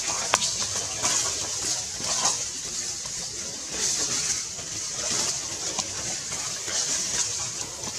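Forest ambience: a steady high-pitched hiss that swells and fades about once a second, with light crackles and rustles of dry leaf litter as a macaque walks over it.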